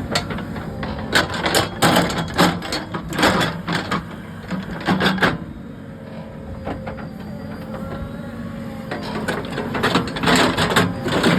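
Backhoe loader's engine running steadily while digging, with a rapid series of sharp clanks and scrapes through the first five seconds and again near the end.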